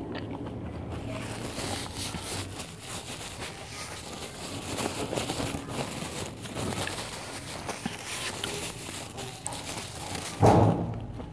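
A paper tissue crinkling and rustling as it is handled and crumpled close to the microphone. Near the end there is one short, much louder dull bump.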